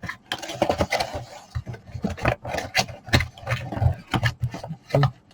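Handling of a small plastic USB switch box: a string of irregular clicks and taps with plastic rubbing and scraping in between.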